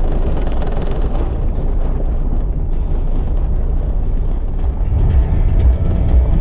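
Road noise inside a moving 4x4: engine and tyres rumbling steadily on a dirt road. Faint music comes in near the end.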